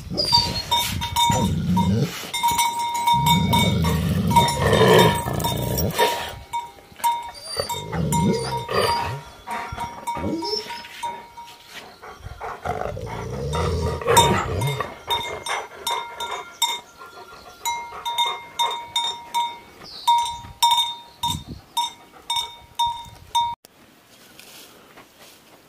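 Tibetan mastiffs growling at each other in deep, rumbling bouts through the first half. Later a small bell rings over and over, about twice a second, before it all goes quiet near the end.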